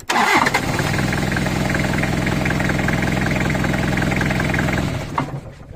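Toyota Hilux 2.8-litre four-cylinder diesel engine started on a lithium/supercapacitor hybrid cranking battery: it catches straight away and runs steadily for about five seconds, then is switched off and runs down. This is the 15th start in a row.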